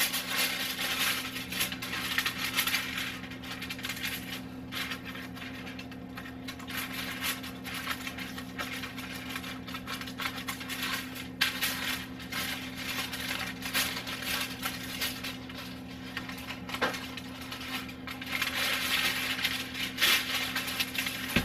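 Aluminium foil crinkling and crackling as the top foil is peeled slowly off a foil pan, in dense irregular crackles, over a steady low hum.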